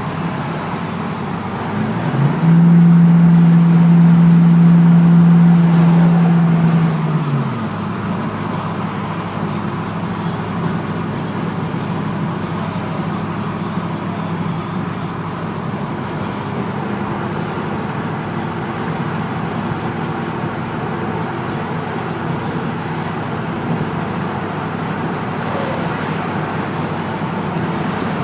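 2004 Ford F-150's 5.4-litre V8 pulling uphill under throttle over steady road noise. From about two to seven seconds in, a loud buzzing rattle at one steady pitch comes in and then stops. The rattle shows up only under throttle, and the owner suspects the catalytic converter.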